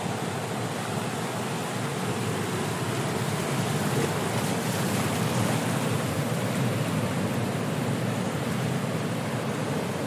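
Ocean surf breaking on a rocky shore: a steady rushing wash of water that swells slightly in loudness midway through.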